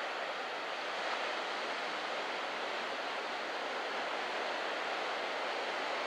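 Surf breaking on a sandy beach: a steady, even wash of waves.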